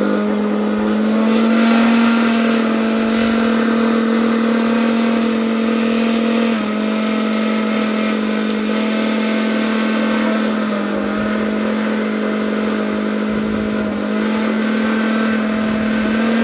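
Electric mixer-grinder (mixie) motor running at full speed while grinding roasted ingredients: a loud, steady hum. Its pitch steps slightly a couple of times, about six and eleven seconds in.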